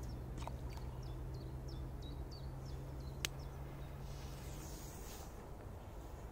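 Quiet bog ambience with a steady low hum and a run of faint, short, high chirps in the first half. About three seconds in comes a single sharp tick as the thrown firecracker hits the water.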